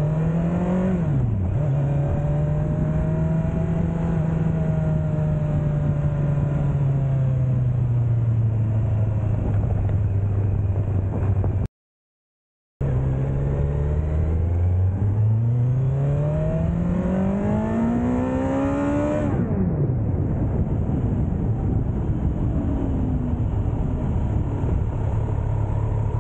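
Kawasaki Z900 inline-four engine through its stock exhaust while riding. The pitch rises briefly and falls sharply at the start, then runs at a steady cruise. The sound cuts out for about a second near the middle. It then climbs in pitch for about five seconds as the bike accelerates, drops suddenly, and settles back to low, steady running.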